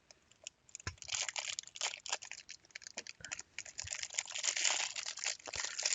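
Packaging crinkling and rustling as it is handled and opened, with a soft knock about a second in.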